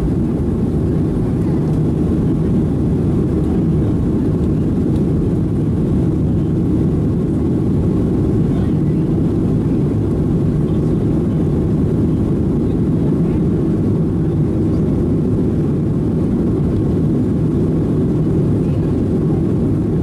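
Steady, deep cabin noise inside a Boeing 737-700 climbing out after takeoff: its CFM56-7B turbofan engines and the airflow over the fuselage, heard from a seat beside the wing.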